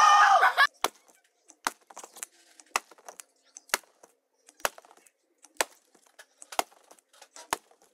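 Sharp plastic clicks from a hand tapping on a plastic water bottle cap, a strong click about once a second with fainter ticks in between.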